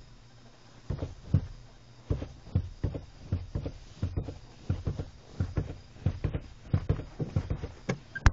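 Work boots pumping a car's pedals fast, giving a run of dull thumps and clunks of the pedals and boots, about three a second, starting about a second in. No engine is heard running.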